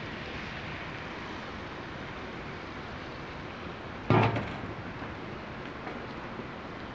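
Egg and butter sizzling steadily on a hot Blackstone flat-top griddle, with one sharp, loud metal knock about four seconds in as the stainless mixing bowl is set down.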